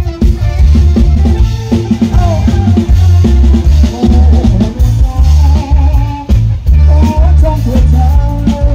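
Live Thai ramwong samcha dance music blasting from a rot hae sound truck's loudspeaker stacks: a miked drum kit laying down a steady, heavy bass beat with a melody line over it.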